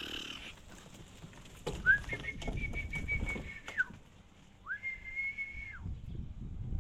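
Two long, level whistles, the first lasting about two seconds and the second about one, over low thudding and shuffling.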